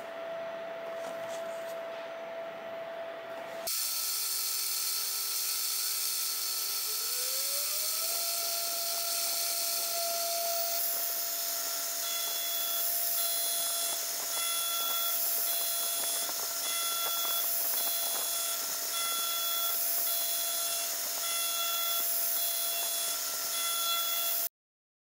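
The 2.2 kW spindle of a CNC router whines steadily as a fine carving bit cuts a relief into 12 mm copper alloy. The sound jumps in level about four seconds in, and the whine's pitch rises a few seconds later before holding steady. In the second half the cutting pulses about once a second, and everything cuts off abruptly near the end.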